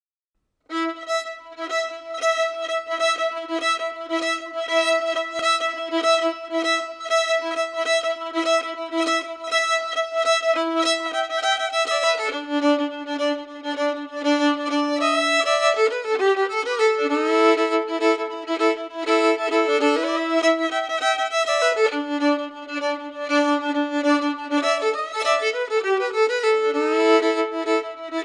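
Violin playing slow, held notes, often two or more sounding together, starting just under a second in.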